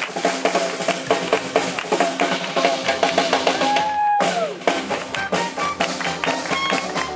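Live swing jazz from a small band, the drums keeping a driving beat under the melody. A long held note breaks off abruptly about four seconds in, and the music carries straight on.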